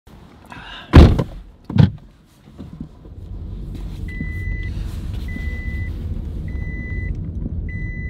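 A car door shuts with a thud about a second in, followed by a second, lighter thump. The engine starts about three seconds in and idles with a low rumble, and the seat belt warning chime then beeps a steady high tone over and over, each beep about half a second long and a little over a second apart, signalling that the driver's belt is unfastened.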